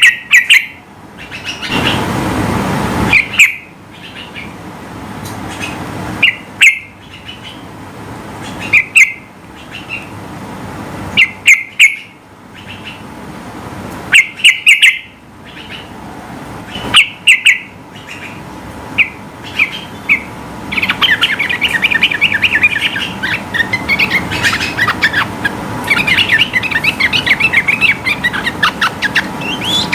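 Yellow-vented bulbul (trucukan) singing in loud, short bubbling phrases every couple of seconds. From about twenty seconds in, these run into a long, fast chattering sequence. A brief rush of noise comes about two seconds in.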